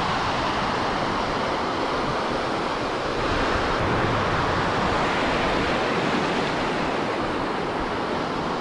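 Surf breaking and washing over a shallow sandy beach: a steady, even rush of waves and foam.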